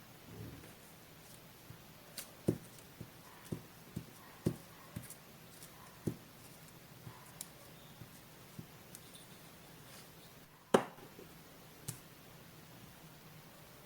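Paper collage materials and tools handled close to the microphone: irregular soft taps and clicks, with one sharper click, the loudest, about eleven seconds in.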